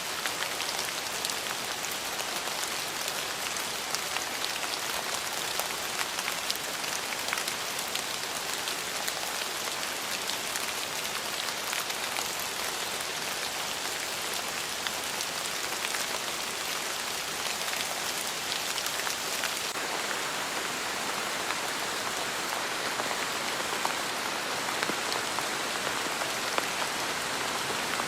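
Heavy rain falling steadily: a dense hiss with many individual drops striking as sharp ticks.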